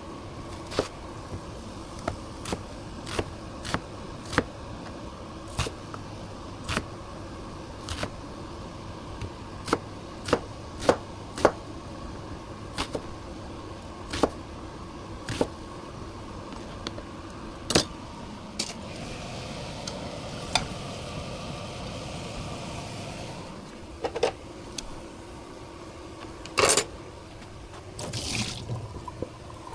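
Kitchen work sounds: sharp knocks of utensils, about one a second, over a steady hum. Water runs for a few seconds in the middle, and two louder knocks come near the end.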